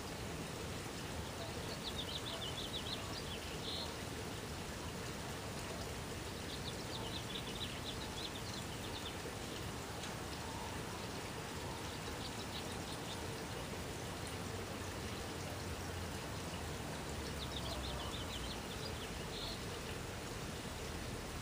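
Steady outdoor background hiss, with a small bird's rapid, high trill sounding three times, each time for about two to three seconds.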